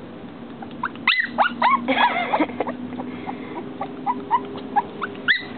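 Shih Tzu puppy whimpering and yipping in short high cries, with a louder run of cries about a second in and a rising whine near the end; the fussing of a puppy upset at being unable to get through the glass.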